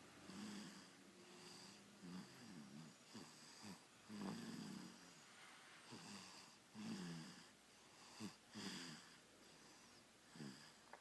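Sleeping baby snoring faintly, a short low snore with each breath about every second or so.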